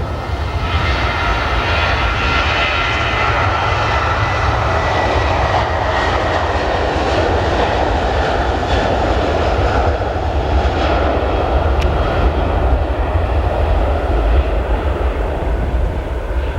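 Airliner's engines running loudly as the aircraft passes, a dense roar with a faint whine that sinks slightly in pitch.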